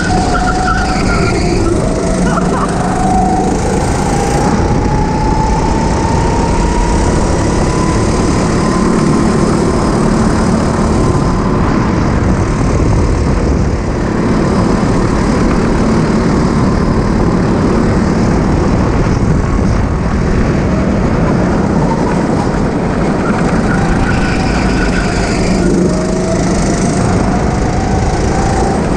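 Go-kart engine running hard on track, its pitch climbing slowly over several seconds as the kart accelerates. The pitch falls back about twenty-five seconds in and starts climbing again near the end, over a steady rush of noise.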